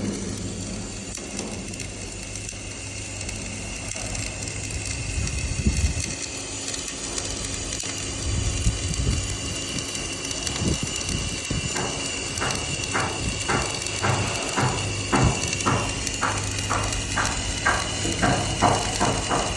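Steady machine hum with scattered low knocks, then a regular mechanical clicking at about two clicks a second starting a little past halfway.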